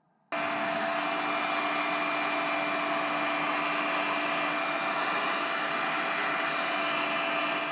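Electric heat gun blowing hot air steadily, switched on abruptly just after the start and off at the end, a fan whir with a faint steady hum. It is heating an aluminium engine case so the case expands and frees a stuck bearing.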